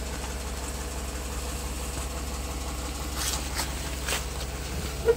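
Vehicle engine idling steadily, a low hum, with a few light clicks between about three and four seconds in.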